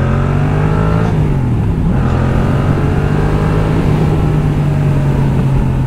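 Yamaha MT-07's parallel-twin engine through an Arrow full exhaust, heard while riding. It revs up, falls away as the throttle is rolled off about a second in, then settles into a steady pull.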